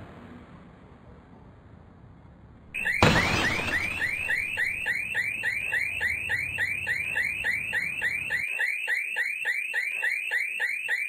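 A single loud impact about three seconds in, then a car alarm sounding: a rapid, evenly repeating rising chirp, about three a second.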